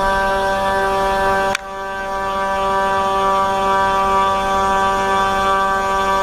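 500 W spindle on a 3018 desktop CNC router milling a slot through wood: a steady, loud, high-pitched whine with a strong hum under it. About a second and a half in there is a sharp click, the sound drops suddenly and then builds back up over the next second or so.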